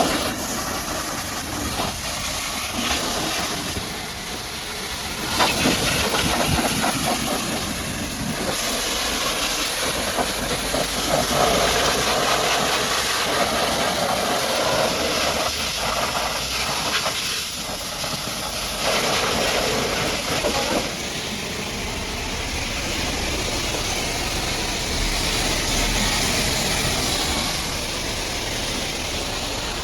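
High-pressure washer jet spraying against a muddy truck: a steady loud hiss of water spray whose tone shifts several times as the jet moves over different parts of the truck.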